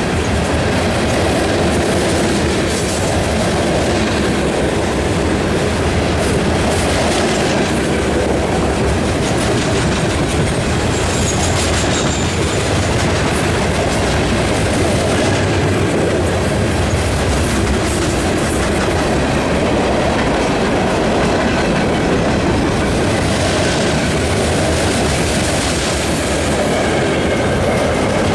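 Long CSX mixed freight train rolling steadily past, its car wheels clacking over the rail joints in a continuous loud rumble.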